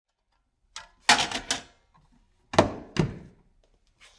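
A series of sharp thuds or knocks: a quick cluster of about four about a second in, then two more about half a second apart around the middle.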